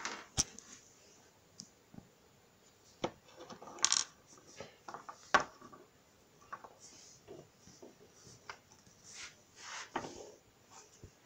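Small plastic Littlest Pet Shop toy figures being handled and set down on a wooden floor: a scatter of light clicks and knocks with soft rustling between them, the sharpest about half a second in and just after five seconds.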